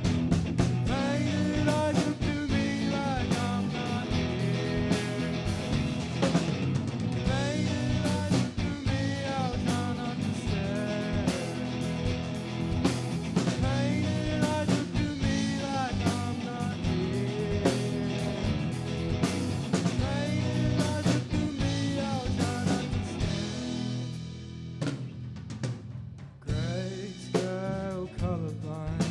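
Live rock band playing a song: a singer's voice over drum kit and guitars. About 24 seconds in the band drops back briefly, then comes in again fully.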